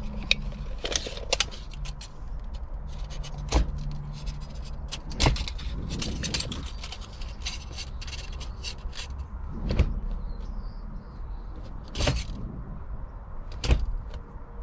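Handling noises from a short-throw gear lever and a tape measure: scattered clicks and knocks as the lever is moved into first gear and its throw is measured, over a steady low hum.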